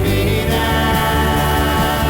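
Live worship band music, holding sustained chords.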